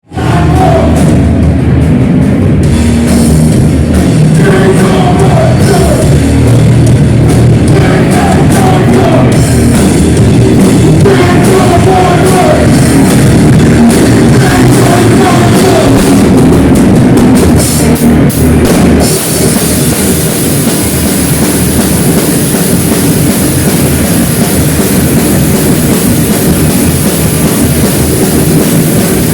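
Loud heavy rock or metal music with a drum kit. About two-thirds of the way through it changes into a denser, more continuous wall of sound.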